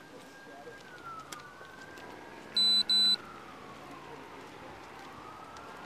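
A faint siren wailing, its pitch slowly rising and falling. About two and a half seconds in, two short loud electronic beeps sound a fraction of a second apart.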